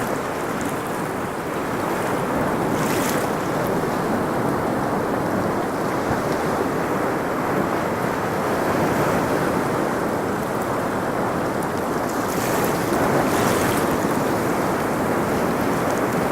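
A steady rushing noise of moving water or wind, with no surges or breaks.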